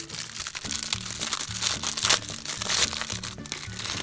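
Plastic trading-card pack wrapper crinkling and crackling as it is handled and opened, over background music with a stepping bass line.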